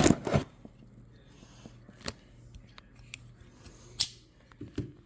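Cardboard shipping box being cut and pried open: a few short, sharp snips and scrapes, the loudest right at the start and about four seconds in.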